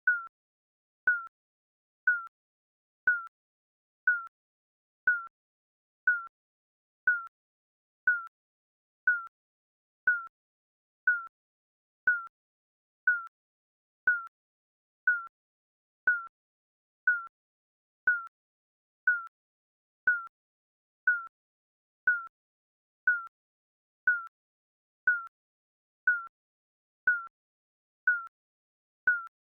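Digital countdown timer beeping once a second: a short, high, single-pitched beep each second that fades away quickly, every beep alike.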